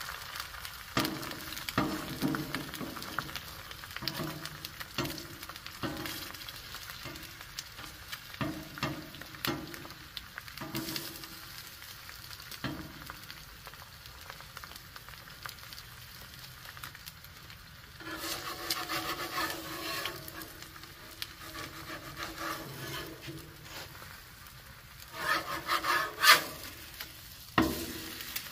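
An egg frying in butter on a Blackstone griddle's steel top, sizzling steadily, while a metal spatula scrapes and taps the griddle around it. The loudest scrapes and knocks come near the end, as the egg is flipped.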